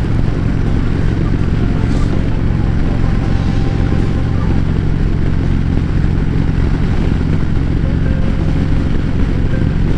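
Harley-Davidson Road Glide Special V-twin with Rinehart slim-line true dual exhausts, running steadily at highway cruising speed, with rushing wind.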